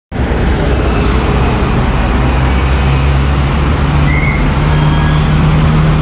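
Busy city street traffic: a steady din of vehicle engines, with one low engine drone growing slightly stronger and edging up in pitch as it runs.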